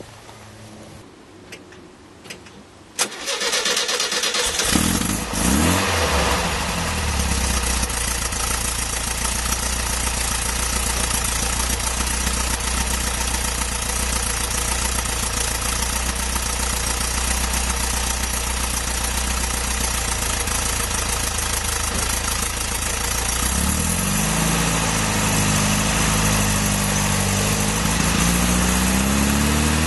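VW T2 camper's air-cooled flat-four engine with a JK Stainless single quiet-pack exhaust, heard from the rear bumper near the tailpipe. It starts about three seconds in, revs briefly, then idles steadily. Near the end the revs rise and fall twice as the van pulls away.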